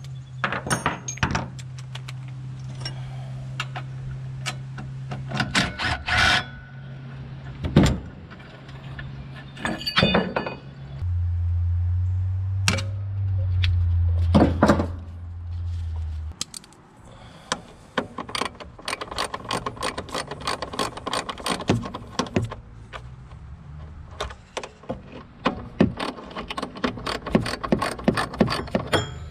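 Hand tools clinking and clanking against metal, with quick runs of clicking in the last third as a wrench turns a bolt beside a lawnmower engine's belt pulley. A low steady hum sits underneath, louder for about five seconds in the middle.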